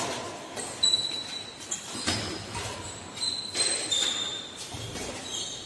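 Badminton rackets striking a shuttlecock about three times, a second or so apart, in an indoor hall, with short shoe squeaks on the court floor between the hits.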